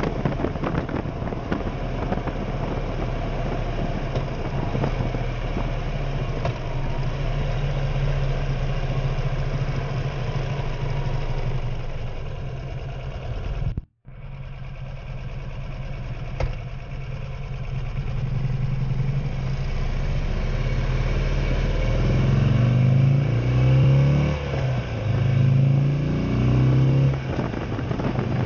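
Buell motorcycle engine running on the road at a steady pace, with a brief dropout midway. Later, the engine note rises and falls back several times as it accelerates through the gears.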